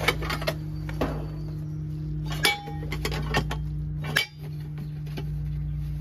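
A steady low machine hum with scattered light clicks and metallic clinks, the loudest about two and a half seconds in.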